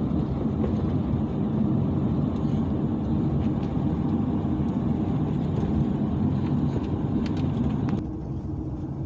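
Sprinter cargo van driving, heard from inside the cab: a steady rumble of engine and road noise. The level drops suddenly about eight seconds in.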